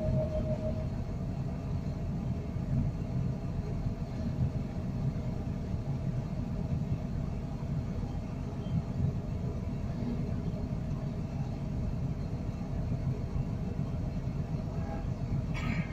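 Heavy construction machinery running steadily, a continuous low rumble, with a brief sharp noise near the end.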